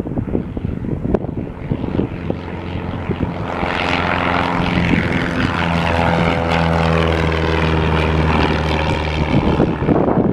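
Piper PA-28-181 Archer's four-cylinder Lycoming O-360 engine and propeller at full takeoff power as the plane lifts off and climbs past. The engine sound builds a few seconds in, is loudest through the middle and fades near the end, with wind gusting on the microphone at first.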